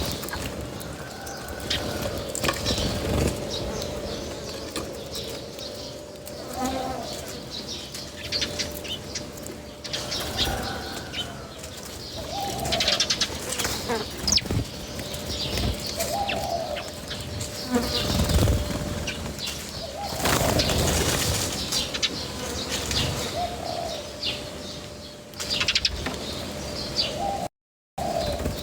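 Birds at a feeding spot: short arched calls every few seconds over scattered clicks, rustles and wing flutters, with a steady hum underneath. The sound cuts out briefly near the end.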